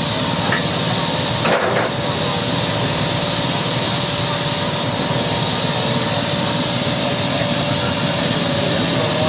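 Steady hiss of steam venting from a 1.5-inch-scale live-steam locomotive, with one short clank about one and a half seconds in.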